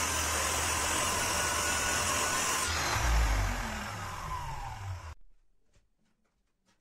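Sliding compound miter saw running at full speed as it crosscuts a walnut-and-pine board. Its motor then winds down with a falling whine, with a low thump about three seconds in. The sound stops abruptly about five seconds in, leaving a few faint ticks.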